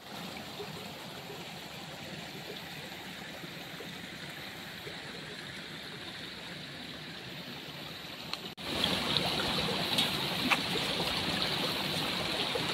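Steady rushing, water-like noise, which grows louder and brighter after a cut about two-thirds of the way through, with a few faint ticks.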